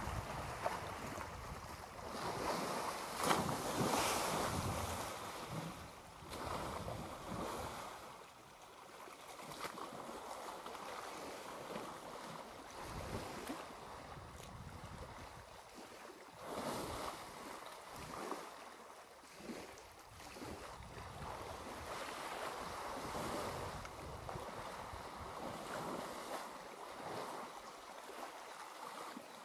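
Water splashing and sloshing as two African elephants wrestle chest-deep in a waterhole, in uneven swells, with wind rumbling on the microphone.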